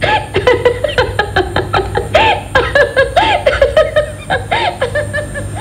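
A woman laughing in a long run of short, high giggling bursts over a low, steady music bed.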